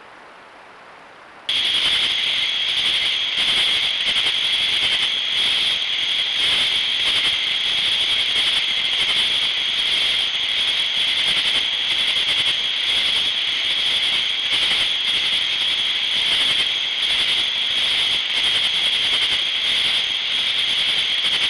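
Loud, steady insect chorus: a high, shrill buzz with a pulsing upper edge, starting abruptly about a second and a half in.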